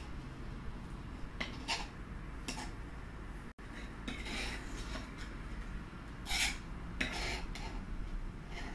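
Knife cutting through a soft banana dessert and clicking against a ceramic plate a few times, with light clinks of the plate as the pieces are tidied.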